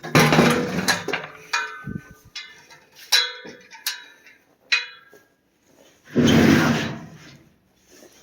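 Handling noises: rustling and scraping, with a few sharp clanks that ring briefly in the middle, and a louder scrape about six seconds in.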